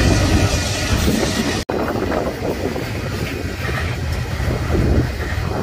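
Double-stack intermodal container train rolling past at close range: a steady rumble of the freight cars' wheels on the rail. The sound cuts out for an instant about a second and a half in, then the same rolling rumble carries on.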